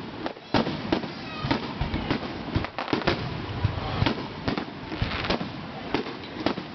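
Aerial fireworks display bursting: an uneven run of bangs and crackles, several a second, some much louder than others.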